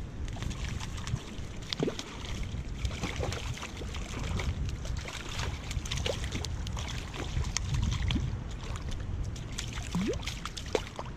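Water splashing and sloshing in the shallows of a stream as a hooked trout is brought in by hand, with many short crackles and splashes over a steady low rumble of wind on the microphone.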